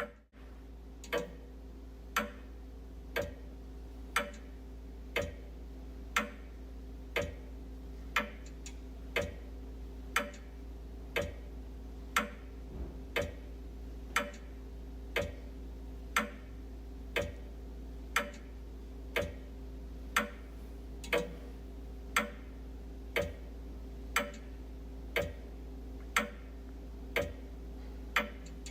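Wall clock ticking steadily, about two ticks a second with every other tick louder, over a low steady hum.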